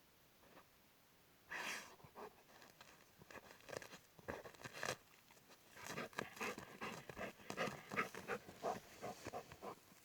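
A dog making short, irregular, noisy sounds. They start with one burst about a second and a half in and come thick and fast through the second half.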